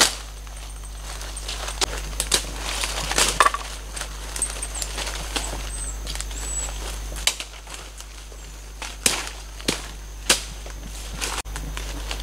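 Footsteps and handling in dry leaf litter: irregular crunches and rustles with sharp cracks scattered throughout. Faint high chirps are heard around the middle.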